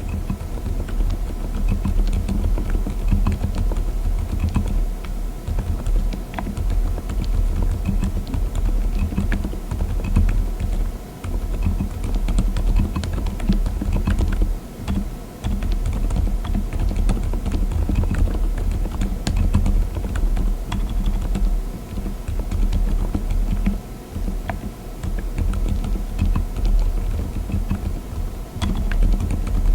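Typing on a mechanical keyboard fitted with Lime silent tactile switches (35 gf): a steady stream of soft, low-sounding keystrokes with a few short pauses.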